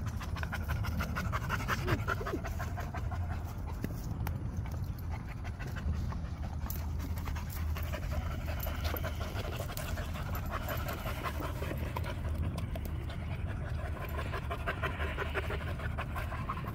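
Dogs panting steadily and rapidly, hot and thirsty from playing.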